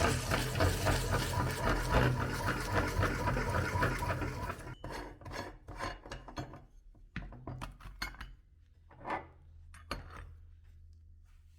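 An electric meat grinder runs with a steady motor hum while an ice cream cone is crushed through it in a dense, rasping crunch. About halfway through, the crunching stops. Scattered clicks and crackles follow as the sound fades.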